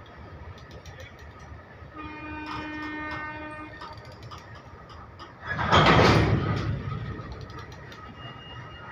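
Hopper wagons of a loaded coal goods train rolling slowly past, with light clanks and clicks from the wheels and couplings. A train horn sounds for about a second and a half about two seconds in. About five and a half seconds in, a loud rushing burst of noise, the loudest sound here, swells and fades over about a second and a half.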